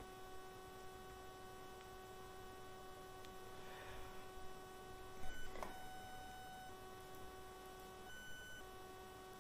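Faint electrical hum and whine: several steady high tones that cut out and come back a few times. A soft noise comes about four seconds in, and a brief faint rustle a little after five seconds.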